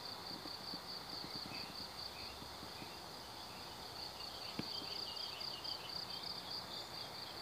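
Insects chirring: a high, steady, pulsing chirr, with faint scattered clicks under it.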